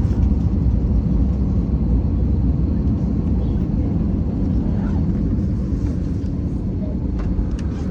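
Steady low rumble of an Airbus A321-211's CFM56 jet engines and airflow heard inside the cabin, easing slightly in level, with a couple of faint clicks near the end.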